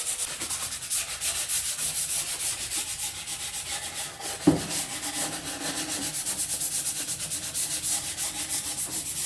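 Cordless jigsaw cutting thin plywood: a steady, fast rhythmic rasp of the blade, with one sharp knock about halfway through.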